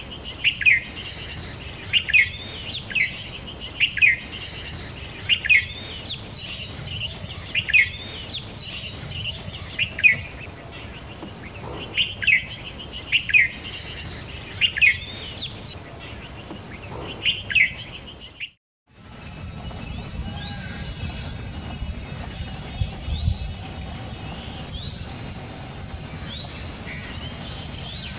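A peafowl giving loud, sharp falling calls over and over, about once a second: alarm calls raised at a leopard. They stop at a sudden break about two-thirds of the way through. After it come only faint high chirps of small birds over a low steady hum.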